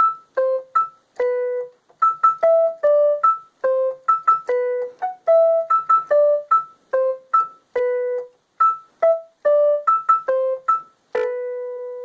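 Technics SX-K700 electronic keyboard playing a quick melody of short, clean piano-like notes, like a phone ringtone tune. It ends on one longer held note that fades out.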